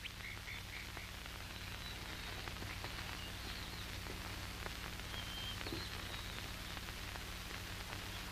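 Quiet old film soundtrack: a steady low mains hum and hiss, with a few faint high chirps in the first second.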